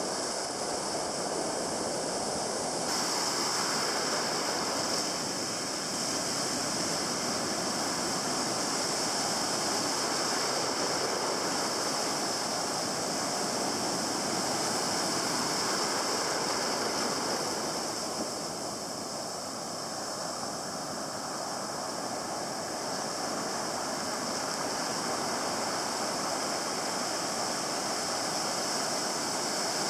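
Ocean surf breaking and foaming close by, a steady rushing wash of water that eases slightly a little past halfway.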